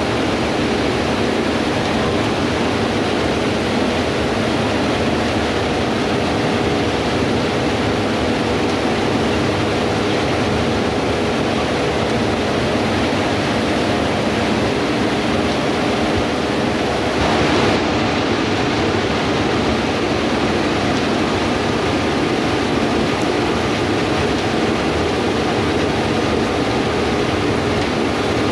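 Gleaner S98 combine harvesters running steadily while harvesting wheat: a dense, even machine noise with a faint engine hum, briefly swelling about 17 seconds in.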